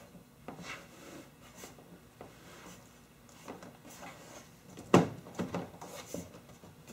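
Plastic door insert being handled and fitted against the door frame: light rubbing and scattered soft taps, with one sharp knock about five seconds in.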